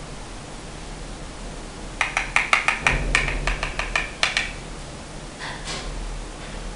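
Makeup brush worked briskly in a compact of pressed powder: a quick run of about a dozen scratchy taps over two seconds or so, starting about two seconds in, followed by a couple of fainter brush strokes.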